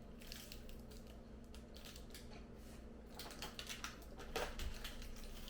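Someone chewing a crisp cookies-and-cream wafer cookie: faint, irregular crunches and crackles, coming thicker in the second half.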